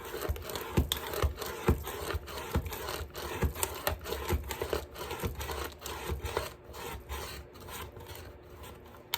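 Rotary paper trimmer's cutting head slid rapidly back and forth along its rail, scraping and slicing through a stack of notebook paper in about two strokes a second, easing off near the end as the cut is finished.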